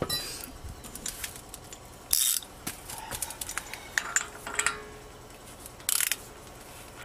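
Ratchet wrench clicking in short runs, with a few sharp metal clinks, as the front axle nut is run down onto the hub's axle shaft.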